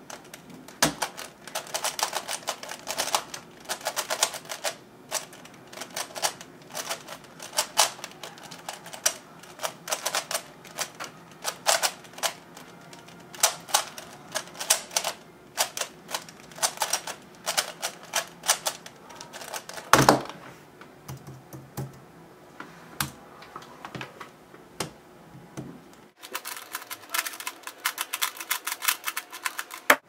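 FII 3x3 speed cube, lubricated with shock oil, turned rapidly: quick runs of clicking plastic layer turns. A single loud thump about two-thirds of the way through, then a quieter stretch, then another dense run of turning clicks near the end.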